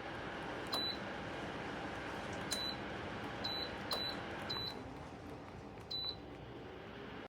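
Electric space heater running with a steady fan hum while its controls beep six times, short high beeps spaced irregularly. The fan sound drops somewhat about five seconds in.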